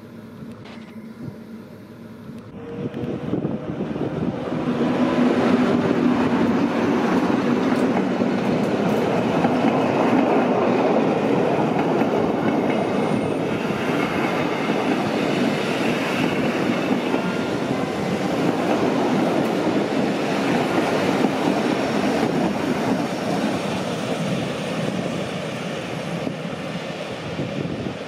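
A Rhätische Bahn Ge 4/4 II electric locomotive and its train of coaches rolling past on departure. The rumble builds about three seconds in, stays loud while the coaches pass, and eases a little near the end.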